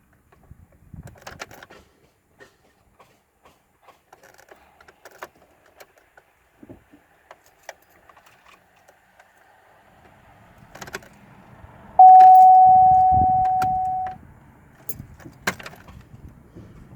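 Car keys jangling and clicking as the ignition of a car with a drained battery is tried. About three-quarters of the way in, one loud steady tone sounds for about two seconds, fading as it goes, with low thumps beneath it.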